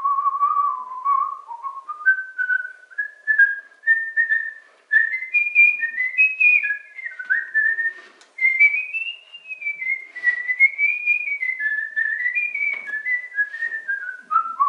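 A man whistling a melody with his lips, clear single notes stepping up and down between phrases with short breaks for breath near 5 and 8 seconds in.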